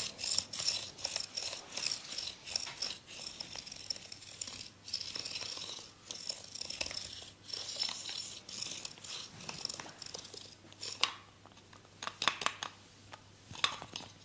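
Hands rubbing and scratching over skin and hair during a massage: a fast, rhythmic scratchy rustle that thins out after about ten seconds, followed by a few sharp clicks near the end.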